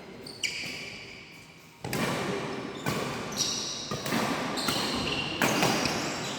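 Badminton rally in a hall: sharp racket-on-shuttlecock hits about once a second, with high squeaks from court shoes between them.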